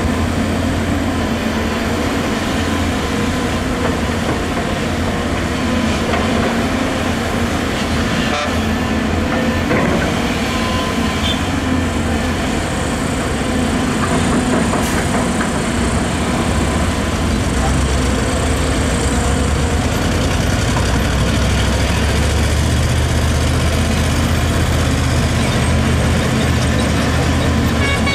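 Volvo EC250DL crawler excavator's diesel engine running steadily under load as it digs soil and loads a dump truck, its drone deepening about halfway through, with a few faint knocks.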